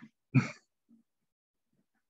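A man's short non-speech vocal sound, such as a grunt or throat-clear, once about a third of a second in, followed by a faint one near one second.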